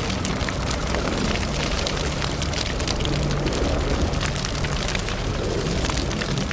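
Fire burning fiercely: a steady low roar of flames with constant sharp crackling and popping.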